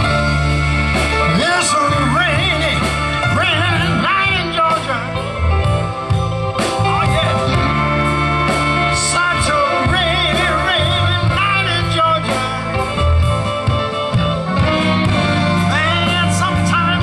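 Live band with electric guitar, bass, drums, keyboard, trumpet and saxophone playing a slow soul ballad. A lead line with wavering pitch sits over a steady pulsing bass and drums.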